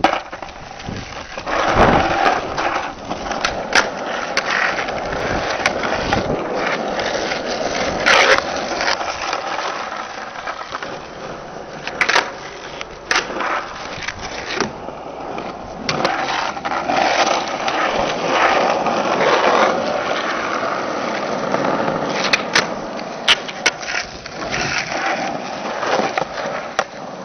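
Skateboard wheels rolling over rough asphalt in a steady grinding rumble. Sharp wooden clacks ring out again and again through it as the board's tail pops and the deck lands on flat-ground tricks.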